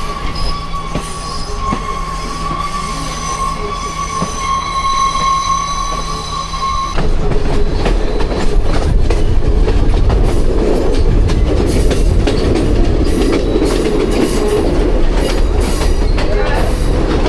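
Passenger train running on rails: a steady high wheel squeal for about the first seven seconds, then an abrupt change to louder rattling and clatter of the moving carriage.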